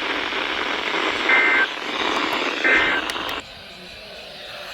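Emergency Alert System end-of-message data tones: two short two-pitch digital squawks about a second and a half apart, over radio static. The static cuts off suddenly near the end.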